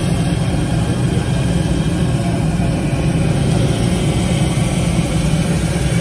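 Steady low roar of the gas burner under a large wok of samosas deep-frying in oil, with the frying hiss over it.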